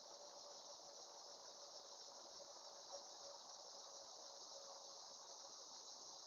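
Faint, steady insect chorus of crickets: a continuous high trill, with a faint steady low tone underneath.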